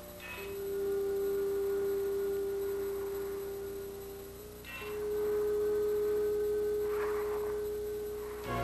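Eerie electronic soundtrack tones: two long, steady pure notes, each swelling and fading over about four seconds. The second is a step higher than the first, with faint shimmering sounds above them.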